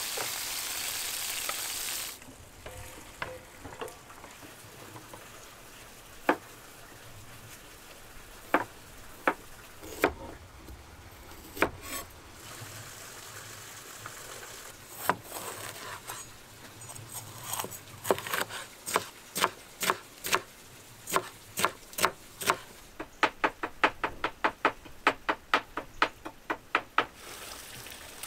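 Food sizzling in a pan, cut off after about two seconds. Then come scattered sharp knocks on wood, which turn into quick, regular tapping of about four a second over the last few seconds.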